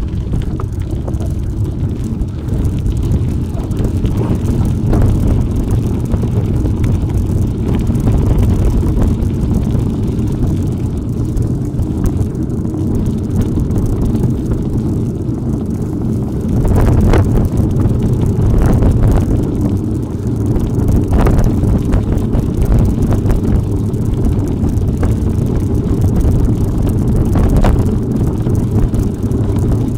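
Steady wind buffeting on the microphone of a camera riding along on a bicycle on an off-road trail, with a few sharp knocks and rattles from the bike over bumps.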